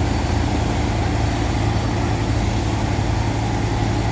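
A motor vehicle's engine running steadily, a low, even hum with no change in speed.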